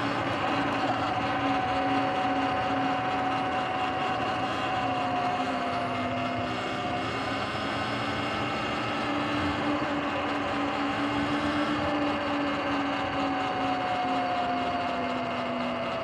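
Sur-Ron electric dirt bike's motor and drivetrain whining steadily while it is ridden slowly, the pitch drifting gently up and down with speed, over tyre and wind noise.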